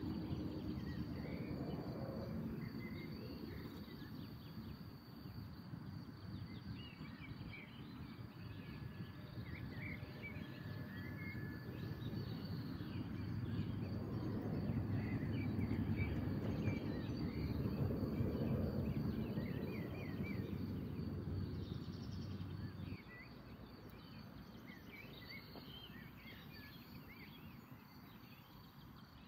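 Wind rumbling on the microphone, strongest in the middle and dropping off suddenly about three quarters of the way through, with small birds chirping on and off.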